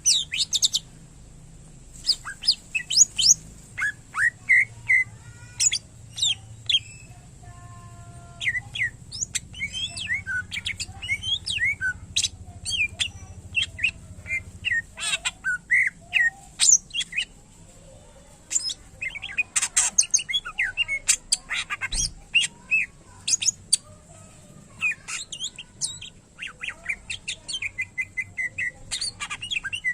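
Greater green leafbird (cucak ijo) singing a rapid, varied song of short chirps, whistles and quick sweeping notes, with borrowed phrases of other birds' songs worked in.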